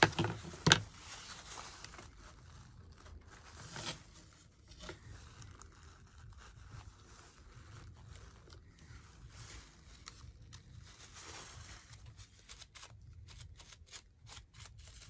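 Two sharp knocks as a wooden plaque is handled on the workbench, then soft rubbing and crinkling as a rag wipes a small painted craft piece, with a run of fine crackles near the end.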